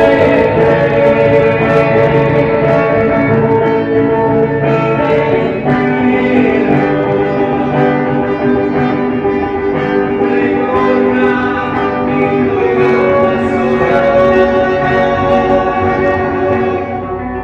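Instrumental music with held chords and plucked notes, no voice.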